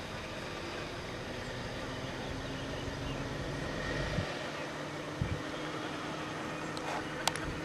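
Steady outdoor background noise with a faint low hum like a distant engine, two low thumps about four and five seconds in, and a sharp click near the end.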